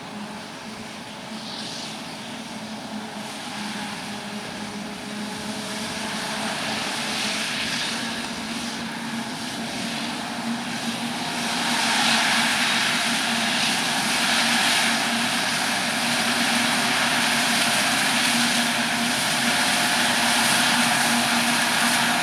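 Diesel engine of a large farm machine at work in a maize field, running with a steady hum and broad mechanical noise. It grows louder over about the first twelve seconds, then holds steady.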